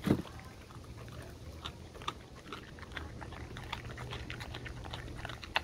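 Dog biting and chewing a whole raw gilt-head bream: irregular short clicks and crunches of teeth on the fish, coming faster in the second half, with a sharper snap near the end. A low thump comes just at the start.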